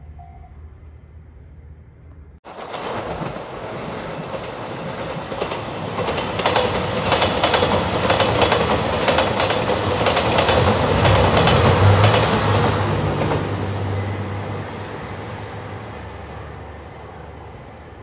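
JR Shikoku 2700 series diesel limited express passing close by: a low engine drone under wheels clacking over the rail joints, building to a peak a little past halfway and then fading. At the very start a level-crossing alarm is dinging, cut off abruptly.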